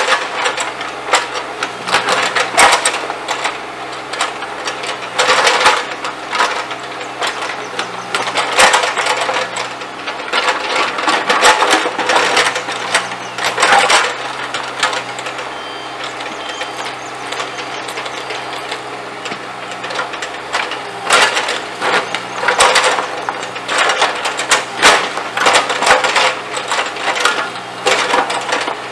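Bobcat E35 mini excavator's diesel engine running steadily while its bucket digs up paving bricks, with repeated clatter and scraping of brick and steel as the bricks are pried loose and tumble onto the pile.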